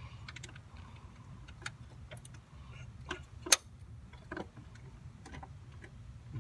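Irregular light clicks and clinks of hand tools and parts being worked in a car's engine bay, with one louder sharp click about three and a half seconds in, over a low steady hum.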